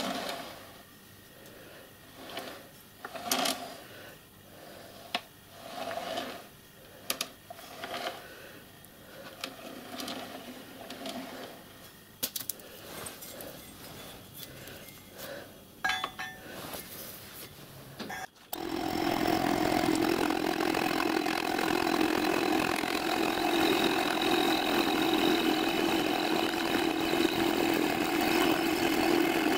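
Heavy sawn steel tram-rail pieces being picked up and set down on a wooden bench, giving scattered knocks and clunks. About 18 seconds in, a vertical milling machine starts up loud and steady. Its face cutter is machining the flat top of the steel rail.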